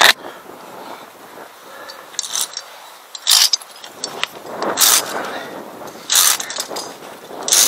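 Via ferrata carabiners scraping and clinking along the steel wire safety cable in several short metallic rasps.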